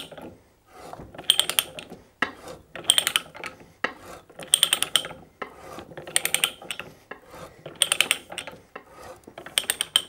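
Hand ratchet pipe-threading die stock being worked back and forth: a burst of rapid ratchet clicks about every second and a half as the handle swings back, with quieter scraping in between as the die cuts a taper thread into low carbon steel pipe.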